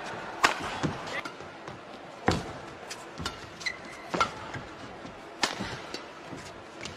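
Badminton rally: four sharp racket strikes on the shuttlecock, roughly two seconds apart, the last a jump smash. Short shoe squeaks on the court mat come between the hits, over the background noise of the hall.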